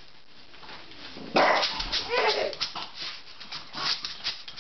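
French bulldog barking: a loud bark a little over a second in, then a whining woof that rises and falls in pitch, and a few shorter barks after it.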